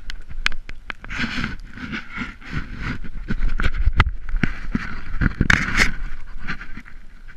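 Crunching and scuffling in fresh snow, a rapid uneven run of knocks and crackles, with low rumble from wind and handling on the microphone.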